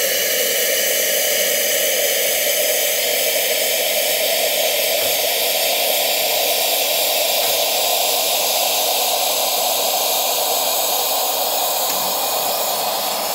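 Hot water and steam running from an Elektra espresso machine's hot-water spout: a loud, steady hiss. The water is being drawn off to lower the boiler so that its automatic refill cuts in.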